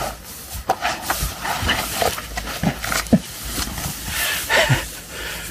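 A man grunting and breathing hard with effort as he forces his body back out of a narrow hole in a stone wall, with scraping and rustling of clothes against stone and grass. A few short strained grunts come in the second half.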